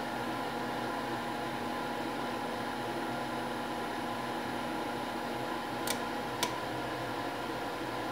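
Steady machine hum and hiss with several steady tones, with two short clicks about six seconds in.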